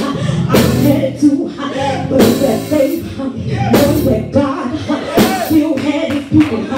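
Live church music: a drum kit with cymbal crashes roughly every second and a half, under voices singing.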